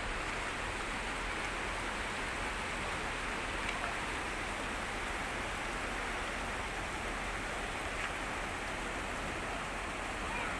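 Steady rushing wind and road noise from riding in a moving vehicle, even throughout with no distinct events.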